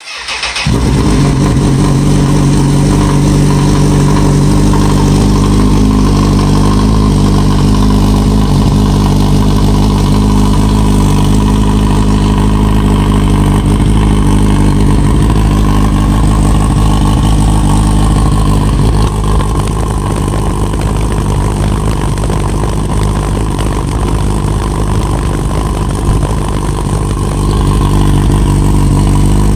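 A 2015 Honda CB1000R's inline-four engine idling steadily through an HP Corse aftermarket slip-on silencer. It is a little softer for several seconds about two-thirds of the way in.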